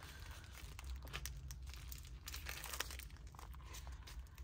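Faint crinkling and crackling of a planner cover's plastic packaging as it is handled.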